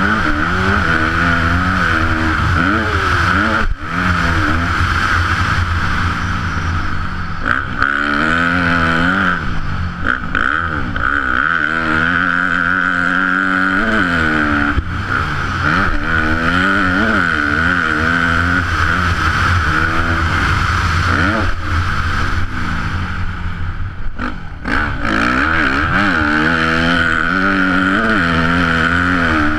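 A Yamaha YZ250F's four-stroke single-cylinder engine being ridden hard on a motocross track, heard from the rider's helmet. Its pitch rises and falls again and again as the throttle is opened and closed. The engine note drops briefly a few seconds in and again about three quarters of the way through.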